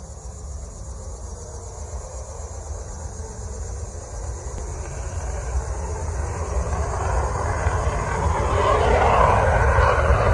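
F-16 fighter jet's engine at takeoff power during the takeoff roll. The jet noise grows steadily louder over a constant low rumble, with a rushing hiss that swells strongly over the last few seconds as the jet nears liftoff.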